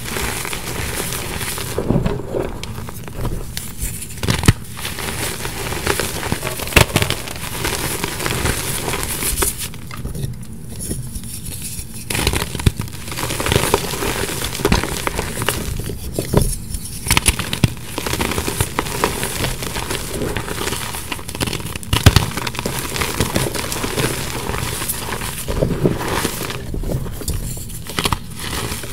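Hands squeezing and crumbling loose powdered gym chalk and packing it back into balls: a continuous crunchy crackle with many sharp crisp crunches, easing off briefly a couple of times.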